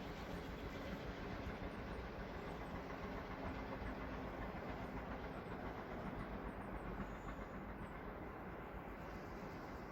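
A heritage train rolling past on the rails, a steady wheel-and-rail rumble whose higher sounds fade away over the last few seconds.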